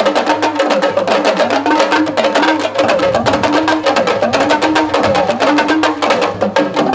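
Drum-ensemble music for the dance: fast, dense drumming with sharp, clacking strokes, over a tone that glides up and down about once a second.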